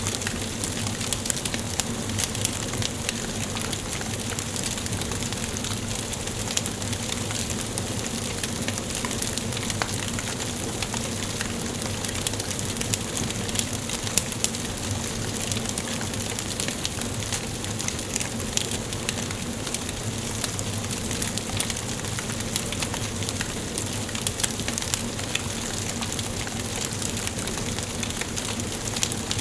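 Wood fire burning in a fireplace: a steady hiss with frequent small crackles and pops.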